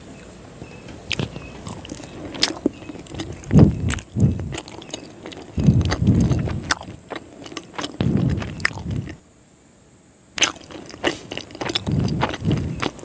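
Close-miked eating of a boiled egg: bites and soft wet chewing with sharp lip and mouth clicks, in bursts, pausing for about a second near the end.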